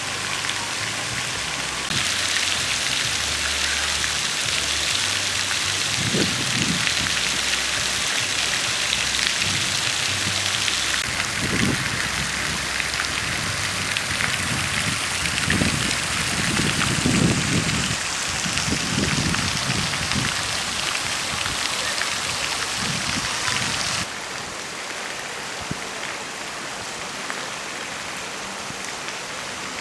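Steady hiss of falling water, like rain, that changes abruptly about two, eleven and twenty-four seconds in and is quieter after the last change.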